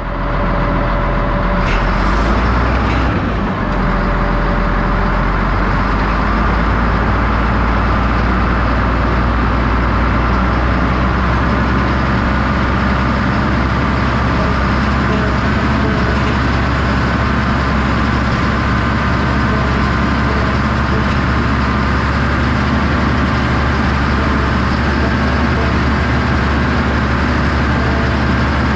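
Cat D6H Series II crawler dozer's six-cylinder Cat 3306 diesel running steadily, heard from the operator's seat. A few sharp clicks come about two to three seconds in.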